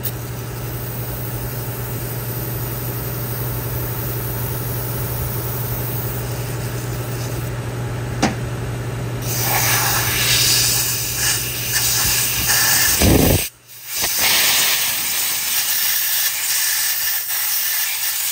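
Aerosol spray can hissing through its straw nozzle in long sprays, louder in the second half, with a short break about 13 seconds in. A steady low hum runs under the first two-thirds.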